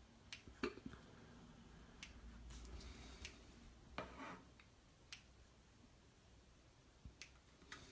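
Scissors snipping through a slice of soft white bread: about eight faint, sharp clicks of the blades, spaced unevenly.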